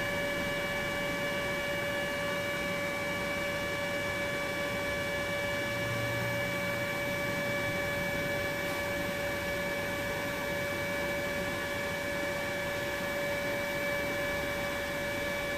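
Steady electrical hum made of several fixed high tones over a faint hiss, unchanging throughout and cut off abruptly at both ends.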